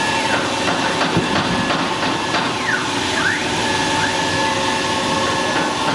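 A 1325 CNC wood router with a 4.5 kW spindle running: a steady spindle tone over dense machining noise, with the drive motors' whine dipping and rising in pitch several times as the gantry slows and speeds up.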